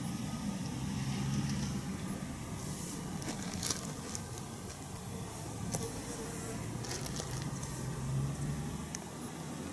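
Low, steady engine hum of a distant motor vehicle, with a few faint clicks.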